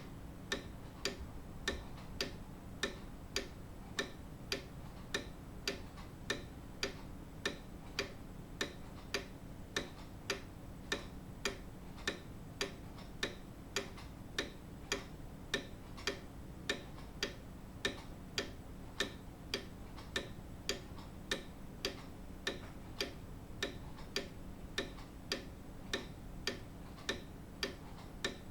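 Grandfather clock ticking: a steady, evenly spaced tick-tock from the escapement, with no chime.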